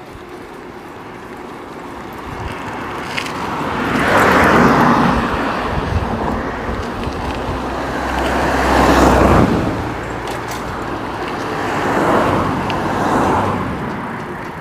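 Cars passing one after another on an asphalt road, three passes that each swell and fade, the loudest about four and nine seconds in.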